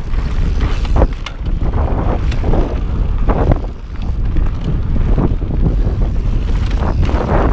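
Strong wind buffeting the action camera's microphone as a mountain bike rolls down a dirt trail, with several sharp knocks and rattles from the bike going over bumps.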